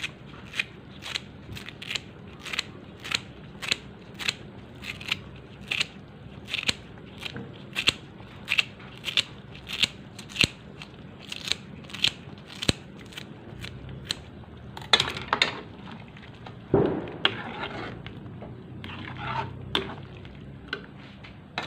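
Scissors snipping fresh turmeric leaves into a pot of rendang, a crisp snip about twice a second. Near the end a few louder scrapes of a spoon stirring in the metal wok.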